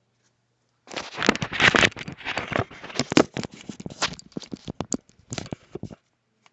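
Handling noise: a dense run of irregular clicks, knocks and rustling, starting about a second in and stopping suddenly about five seconds later.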